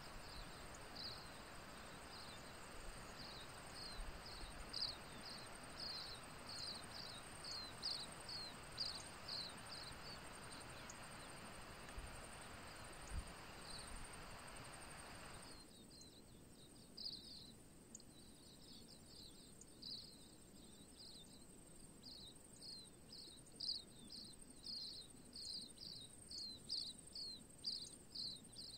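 Insects chirping in quick, regular series of short high chirps over the steady rush of a flowing river. The river sound cuts off suddenly about halfway through, leaving the chirping and a faint high buzz.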